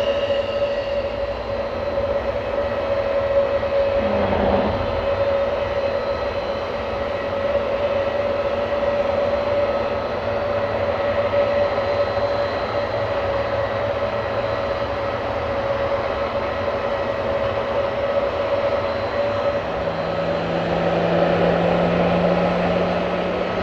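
Airbus A320neo's Pratt & Whitney PW1100G geared turbofan engines running steadily with a constant whine. A brief low rumble comes about four seconds in, and a low hum joins near the end.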